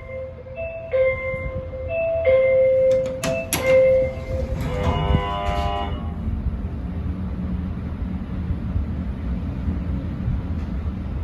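Hitachi hydraulic elevator's door-open chime, a two-note high-low pattern repeating, followed by a click and a soft door-closing buzzer for about a second a little before halfway. After that the elevator's hydraulic drive hums steadily low as the car travels.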